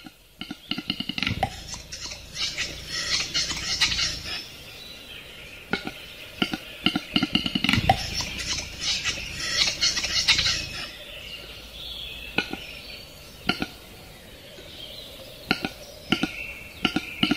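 Male western capercaillie's display song: a run of dry clicks that speed up, then a hissing, scraping phrase lasting a couple of seconds. The song comes twice, followed by scattered single clicks near the end.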